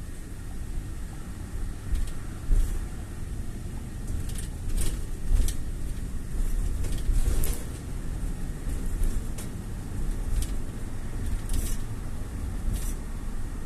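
Car driving: steady low rumble of road and engine noise, with scattered short, high ticks at irregular moments.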